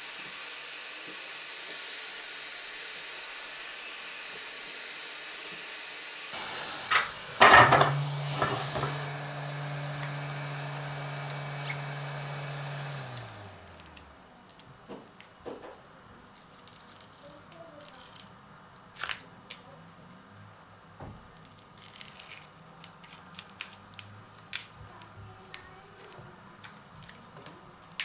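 Hot-air rework gun blowing with a steady hiss, then clicks as it is switched off and set down; its fan's low hum holds for a few seconds, then winds down and stops. After that come scattered light clicks and taps as the glued touchscreen is pried off the phone with a plastic card.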